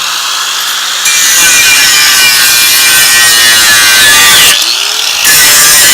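Kawasaki 4.5-inch angle grinder cutting through a steel bolt, a loud grinding whine whose pitch wavers as the disc bites. It gets louder about a second in, eases off briefly near the end, then bites in again.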